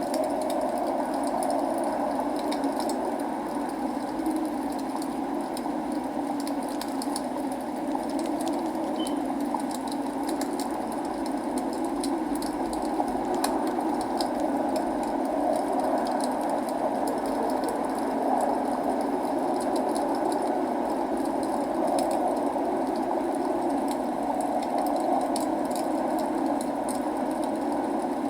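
Log fire crackling, with scattered sharp pops and snaps over a steady rushing of rain.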